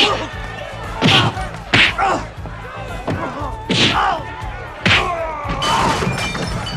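Classic 1970s kung fu movie punch and slap sound effects: five loud, crisp whacks in quick succession, with background music.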